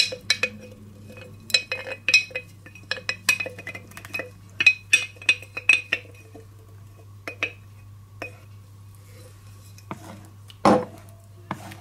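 A wooden spoon knocking and scraping against the inside of a glass jar, a quick run of clinks with a short glassy ring, as the sourdough starter is scraped out into a bowl. After that the taps thin out as the spoon stirs in the bowl, with one louder knock near the end.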